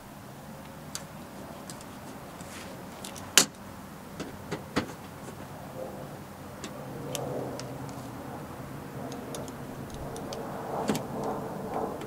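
Scattered sharp clicks and knocks of hand work on a plastic template held against a car's rear bumper, the loudest about three and a half seconds in, over a steady low hum.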